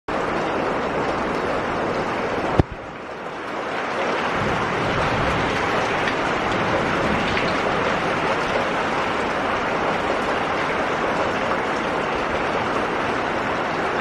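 Steady rain falling on a muddy puddle and wet gravel, a dense even hiss. A sharp click about two and a half seconds in, after which the rain sounds briefly quieter before building back up.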